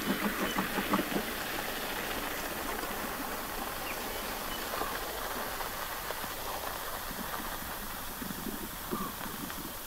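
White rhinos grazing and moving through dry grass: crunching and tearing of grass stems, densest in the first second or so and again near the end, over a steady hiss.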